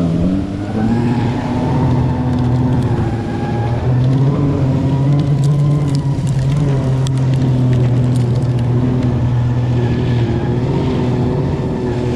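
Snowmobile driving through deep, heavy slush, its pitched drive note rising as it pulls away and then holding a steady drone.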